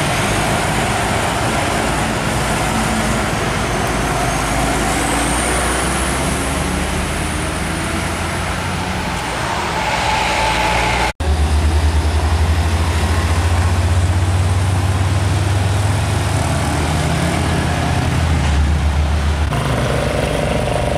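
Heavy diesel truck engines running under load: first a Hino tanker truck driving past, then, after a sudden cut about 11 seconds in, a deep steady engine drone from a Hino tractor unit hauling a container trailer round the bend.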